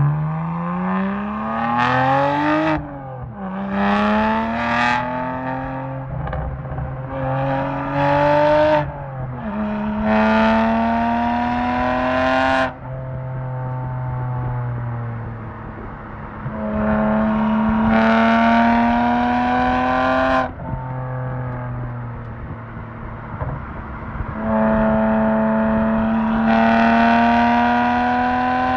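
BMW 1M Coupe's twin-turbo N54 inline-six, with a full Akrapovic titanium exhaust, accelerating hard through the gears. The engine note climbs and drops abruptly at each upshift, about seven times, with a few quieter, steadier stretches between pulls.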